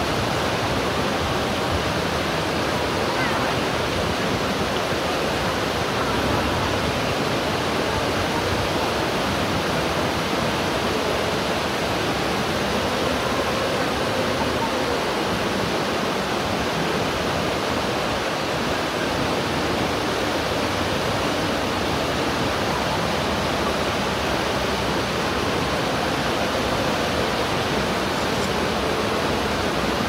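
Water pouring over a low concrete weir: a continuous, even rushing.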